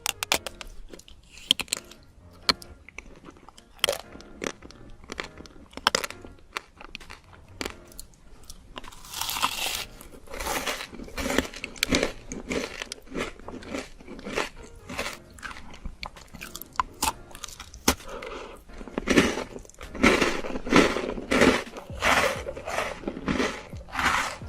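Crunchy food bitten and chewed close to the microphone, mukbang style: sharp separate crunches at first, then denser, louder chewing from about nine seconds in.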